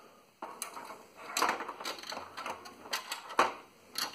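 Hands handling the parts of an opened Apple IIgs, its metal-shielded power supply and plastic case. A quick, uneven run of clicks, knocks and short scrapes starts about half a second in.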